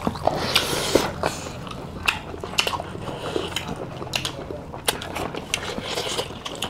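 Close-up eating sounds of two people eating rice and curry with their hands: wet chewing, lip smacks and irregular sharp clicks, a few each second.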